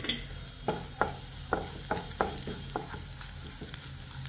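Wooden spatula stirring a tadka of garlic, dried red chillies, cumin and asafoetida in hot mustard oil in a kadhai. A quick run of scrapes and taps against the pan, about three a second, over a light sizzle of frying.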